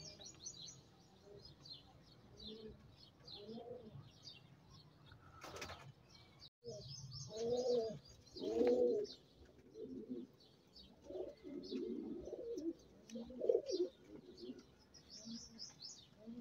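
Domestic fancy pigeons cooing in their coop: a string of low, rounded coos, loudest just past the middle, with high chirping from other birds over them.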